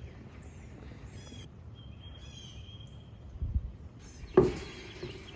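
Songbirds singing, a short high chirping phrase repeated every second or two, over a low steady outdoor background. A single sharp thump about four and a half seconds in.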